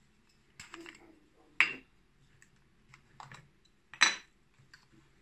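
Hard plastic clicks and clatter as the caps come off a camera lens and body and are set down on a desk. There are a few small clicks, and the loudest knocks come about one and a half and four seconds in.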